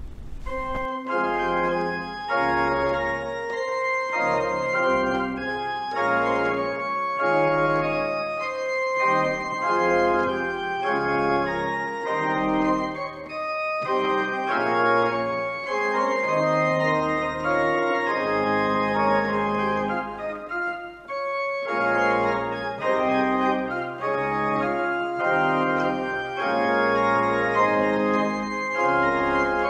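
Organ playing the postlude after the benediction: held chords under moving notes, starting about a second in.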